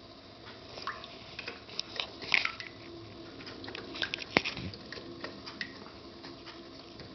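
Small clicks, taps and scrapes of faucet parts being handled while fitting the handle assembly of a Moen faucet, with one sharper click about four seconds in.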